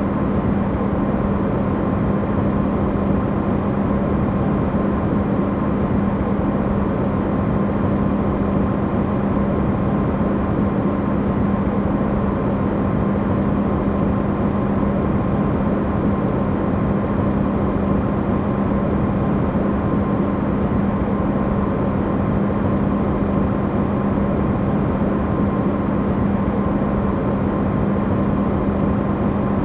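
Electrolux refrigerator running, recorded amplified: a steady hum with a low tone and a fainter higher tone over an even rushing hiss, unchanging throughout.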